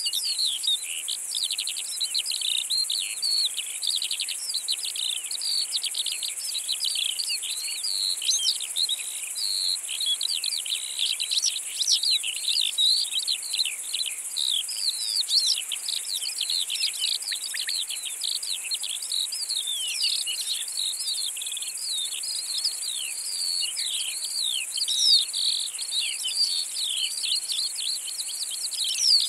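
Insects stridulating in a steady high-pitched hiss, with a bird twittering in rapid chirps over it throughout.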